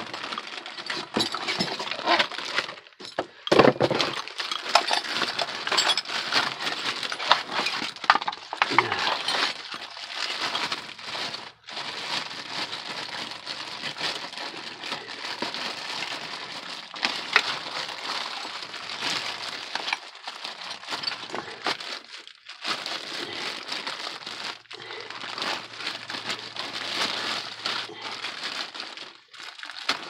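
Plastic packaging bag crinkling and rustling as a new wheel hub bearing assembly is unwrapped from it, in spells broken by short pauses.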